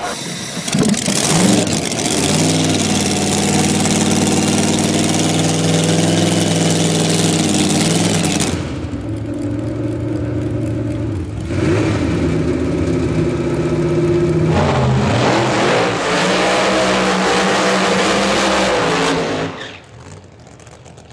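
Loud 1700-horsepower engine of a VW splitscreen bus wheelstander running, in two stretches with a change at about eight and a half seconds. It drops away sharply about a second before the end.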